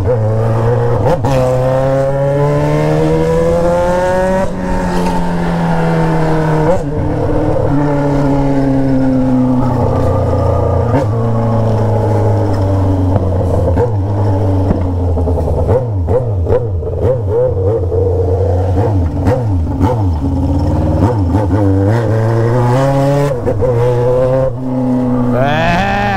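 Yamaha XJ6's 600 cc inline-four, running through a 3-inch straight-through 4-into-1 pipe with no muffler, pulling up through the revs in rising surges with drops at the gear changes. Midway it backs off with a run of popping and crackling on the overrun, which the rider takes as a sign the fuel tune still needs some adjustment on deceleration. It pulls again near the end.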